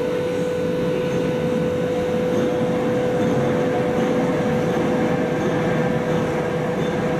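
Steady mechanical running noise with a constant humming tone, unchanging throughout.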